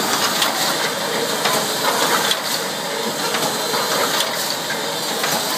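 Wire mesh welding machine running: a steady hiss with irregular sharp clacks.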